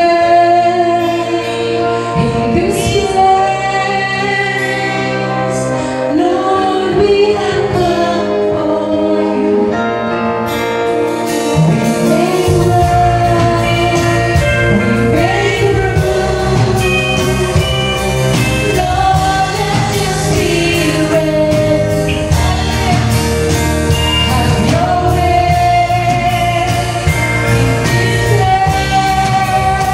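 Live worship band playing with female vocalists singing together over keyboard and bass guitar. The drum kit and a fuller bass line come in about a third of the way in, and the band then plays at full strength.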